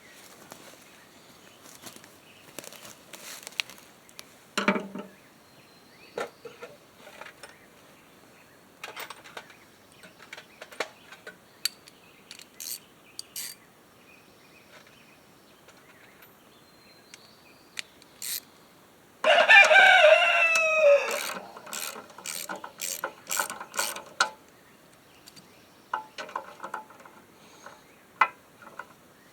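Socket ratchet clicking in short runs as bolts are loosened on a push mower's recoil starter, with scattered taps of tools and parts. A rooster crows once, loudly, about two-thirds of the way through.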